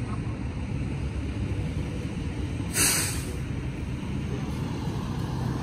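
Steady low rumble of street traffic, with one brief sharp hiss of air about three seconds in.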